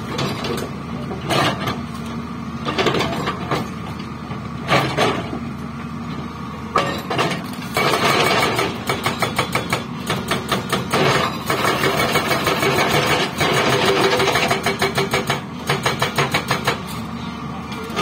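Hyundai excavator's hydraulic rock breaker hammering over the steady running of the excavator's diesel engine. A few separate knocks come in the first seconds, then rapid continuous hammering starts about eight seconds in and breaks into short pulsing bursts near the end.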